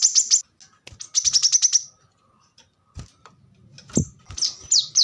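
Brown-throated sunbird (kolibri kelapa) singing rapid trills of sharp, high notes, about ten a second, in bursts of under a second; in the run near the end each note slides downward. Two dull thumps sound about three and four seconds in.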